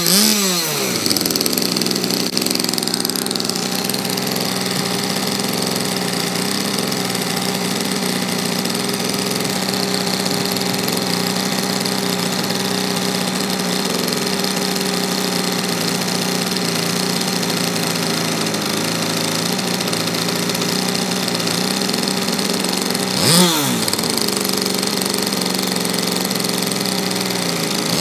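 A small engine dropping from a rev to a steady idle, with one quick rev-and-drop near the end.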